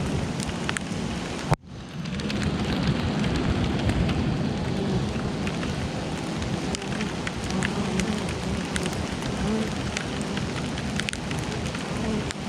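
Steady rain with many individual drops ticking sharply, and under it the wavering hum of honeybees flying at the hive. The sound cuts out abruptly for a moment about a second and a half in.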